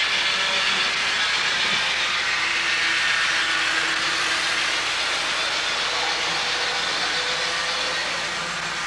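HO scale model train running on the layout: a steady hissing rush with a faint whine, easing off slightly toward the end.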